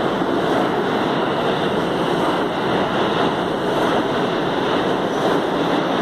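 An R160 subway train pulling out of an underground station, its cars passing close by. Wheels running on the rails make a loud, steady rush of noise.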